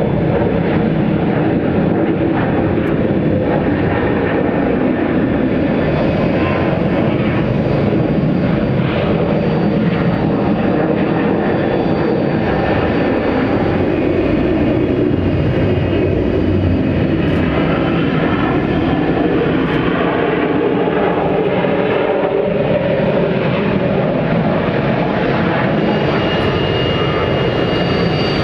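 Jet airliner engines running at an airport, a steady, unbroken rumble. A thin high whine comes in near the end.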